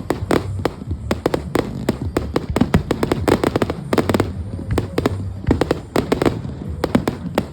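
Fireworks show: a rapid, irregular barrage of shell bursts and sharp crackling reports, several a second, over a low rumble.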